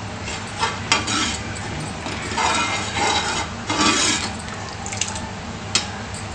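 Steel ladle stirring dal in a metal pan: short scraping passes through the middle and a few sharp knocks of metal on metal, over a steady low hum.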